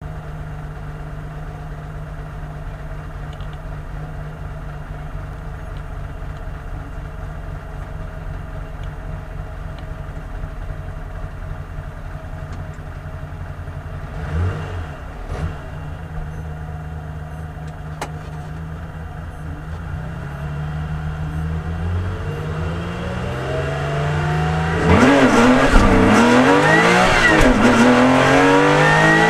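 Porsche RSR's flat-six engine idling steadily at a rally stage start, with two short throttle blips, then revs raised and held before launching at full throttle. It revs up hard and shifts up through the gears, much louder, as the car pulls away.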